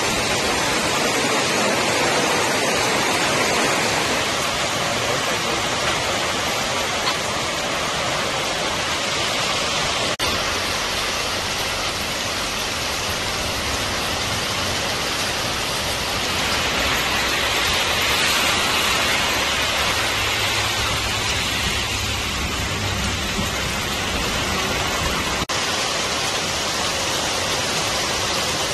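Heavy rain pouring down onto the road and waterlogged ground: a steady, dense hiss of rainfall, with two brief clicks.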